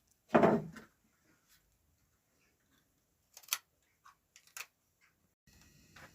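One loud dull knock, then a few light clicks a few seconds later; near the end a steady low room hum comes in suddenly.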